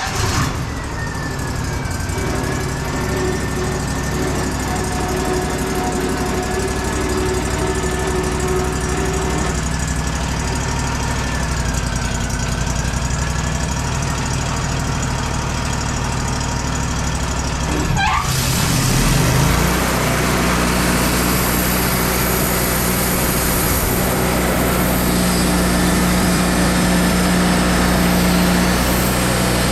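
Wood-Mizer LT40 portable band sawmill's engine running steadily just after start-up. About 18 seconds in, the sound dips briefly, then becomes louder and much hissier as the band blade is engaged, and runs on that way.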